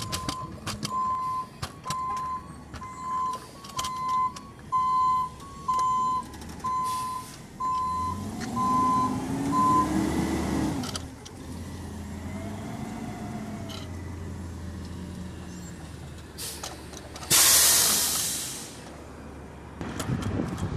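Republic Services Peterbilt 520 CNG front-loader garbage truck with a Cummins Westport L9N natural-gas engine: its backup alarm beeps at one steady pitch about once a second for the first ten seconds, then the engine pulls away with revs rising and falling before settling into a steady run. A loud burst of air hiss from the truck's air brakes comes about seventeen seconds in.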